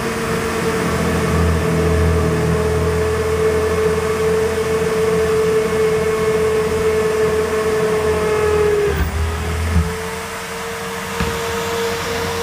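Corded electric drill held in a bench drill-press stand, its motor running with a steady high whine while the bit is fed down into a piece of wood, with a low grinding rumble from the cut. About ten seconds in the cutting rumble stops as the bit comes out, and the motor runs on freely, with a single click shortly after.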